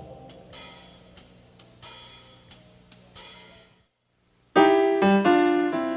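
Intro theme music: soft cymbal and hi-hat strokes over a quiet low tone, a brief break of near silence about four seconds in, then a loud keyboard chord phrase.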